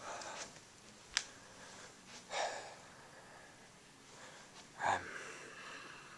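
Faint short breaths or sniffs close to the microphone, two of them a few seconds apart, with a single sharp click about a second in.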